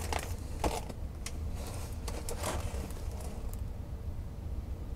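Clear plastic film on a rolled diamond painting canvas rustling and crinkling faintly as the canvas is handled and unrolled, mostly in the first few seconds, over a low steady hum.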